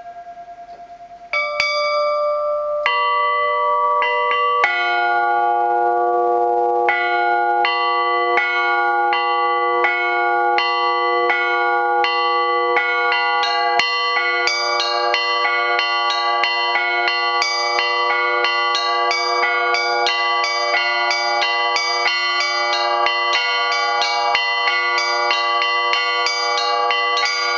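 Four-bell Russian Orthodox zvon on old bells cast at the Olovyanishnikov foundry, rung by one ringer. It opens with single strikes of the small bells, the low bell joins about five seconds in, and it builds into a steady, quickening peal of overlapping ringing bells. The lowest voice is a podzvonny bell standing in for the broken main blagovest bell.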